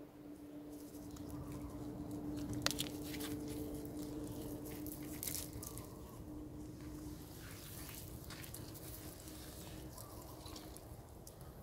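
Faint scattered crackles and clicks of long-tailed macaques moving and handling things on dry leaf litter, with one sharper click about two and a half seconds in, over a steady low hum.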